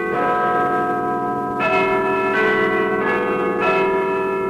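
Large bells chiming a slow sequence of notes, a new stroke about every second or so, each note ringing on under the next.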